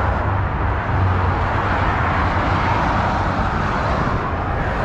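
Steady noise of motorway traffic going by, with a low steady hum underneath.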